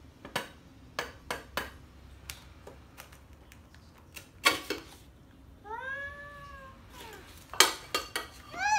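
Clay piggy bank being struck with a small mallet: single sharp knocks, a heavy blow about halfway, then a quick run of blows near the end as it cracks open with a clatter of shards. A high drawn-out call rising and falling in pitch sounds between the blows.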